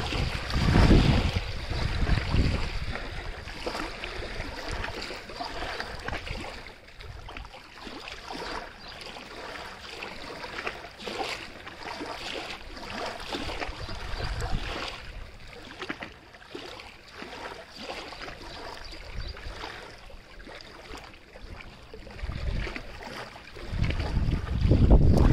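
Water splashing and lapping, a steady wash of small splashes. Gusts of wind rumble on the microphone near the start and again near the end.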